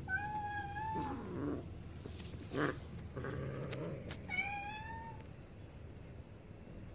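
Domestic cats play-fighting; a cat gives two thin, high-pitched meows, each under a second long, one at the start and one about four seconds in, with quieter low sounds between.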